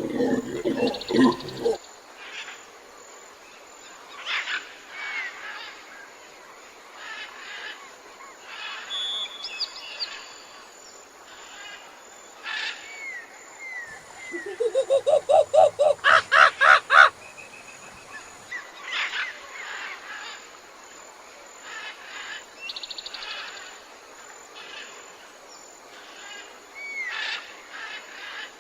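Wild birds calling: scattered short chirps and whistles, with a loud run of about a dozen quick notes rising in pitch about halfway through.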